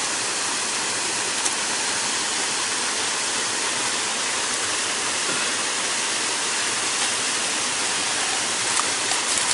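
Steady rush of a small river waterfall, an even hiss of falling and flowing water.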